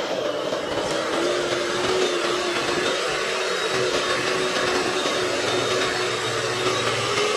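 Electric hand mixer running steadily, its beaters whipping a thick batter in a stainless steel bowl, with a steady motor whine.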